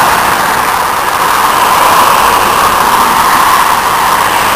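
Loud, steady road-traffic noise of vehicles driving past, tyre and engine noise with no horn.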